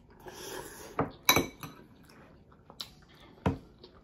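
Metal eating utensil clinking and scraping against a small glass bowl of noodles: a short soft scrape, then a few sharp clinks, the loudest a little over a second in.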